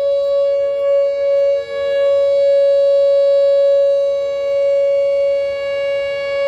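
Whelen 'hockey puck' electronic outdoor warning siren sounding a steady alert tone: a high pitch with a second, lower pitch under it that fades out about a second and a half in.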